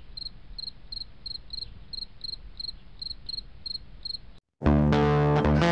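Cricket chirping: short high chirps repeating steadily about three times a second over a faint low rumble, cut off abruptly about four seconds in. After a brief silence, loud guitar music starts near the end.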